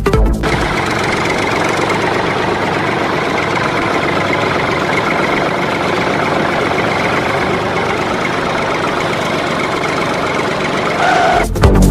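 Small electric motor of a DIY model machine running steadily, a buzzing whirr with little bass. It starts about half a second in and stops shortly before the end.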